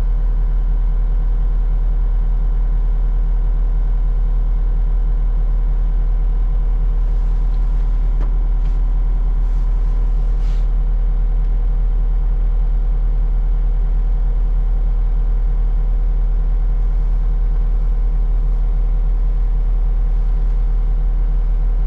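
Skid steer engine running steadily under load with a strong, even low drone, with a few faint ticks partway through.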